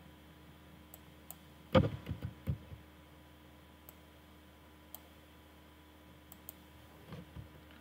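Computer mouse clicking a few times, sharp and light, with a louder cluster of dull knocks about two seconds in, over a faint steady hum.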